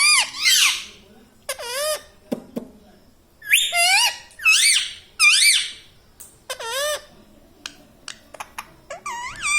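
Ringneck parrot giving a string of high, warbling squawks, about seven short calls, with a few short clicks in between near the end.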